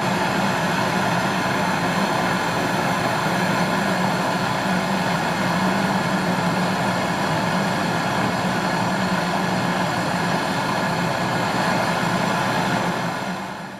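A steady machine-like drone and rushing noise at a constant level, fading out near the end.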